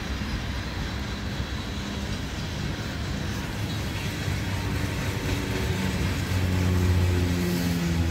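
CN intermodal freight train rolling past, its cars rumbling steadily on the rails. A low, steady hum comes in about five seconds in and grows louder toward the end.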